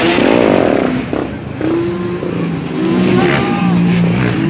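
Quad bike and dirt bike engines revving as they ride past, with a sharp burst of revs in the first second and then engine notes rising and falling.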